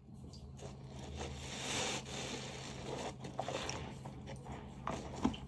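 A dish sponge loaded with dish soap being squeezed and worked by hand. The noise swells over the first two seconds, then holds, with a few sharp clicks near the end.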